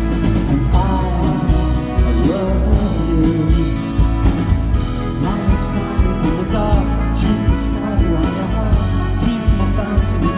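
Live pop-rock band performing: a male lead vocal sings over electric guitar, keyboards and a steady drum beat.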